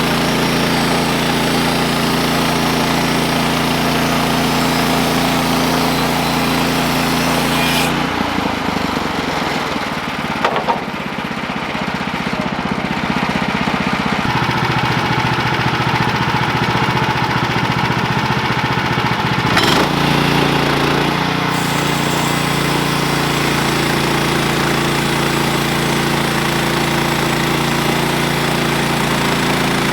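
Portable bandsaw sawmill's small gasoline engine running steadily under power. The sound changes abruptly about eight seconds in and switches back about twenty seconds in.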